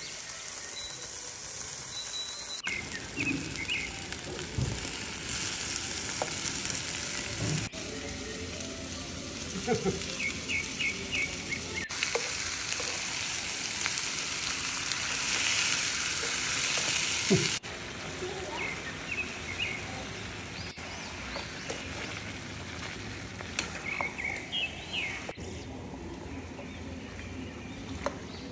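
Chicken pieces sizzling as they fry in a metal pan over a wood fire, with a metal spatula stirring and scraping now and then. The level of the sizzle changes abruptly several times, and birds chirp briefly now and then.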